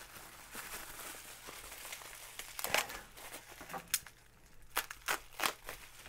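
Plastic bubble wrap crinkling and rustling as hands pull it off a boxed watch package, with several sharp crackles in the second half.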